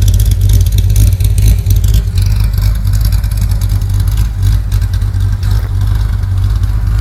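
Corvette C6 Z06's 7.0 L LS7 V8, fitted with a large Lingenfelter camshaft and Melrose headers, idling with an uneven, choppy rumble through its quad exhaust tips. Its sharper, crackly top end falls away about two seconds in.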